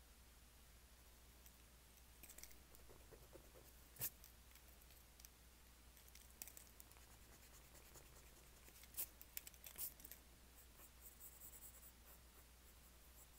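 Faint scratching of a drawing tool on paper, with a few sharp taps. The loudest tap is about four seconds in, with two more around nine and ten seconds in.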